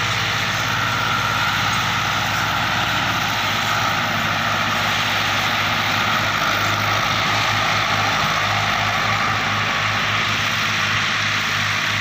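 Diesel farm tractor engines running steadily under load, pulling a plough and a laser land leveller across the field, a continuous drone with an even hiss above it.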